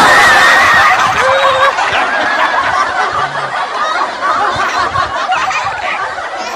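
Continuous laughter, several laughs overlapping without a break.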